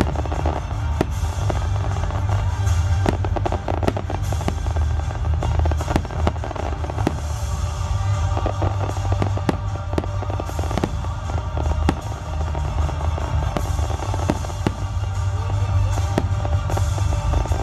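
Aerial fireworks shells bursting in a dense barrage: many rapid bangs and crackles overlapping one another, with a continuous low rumble underneath.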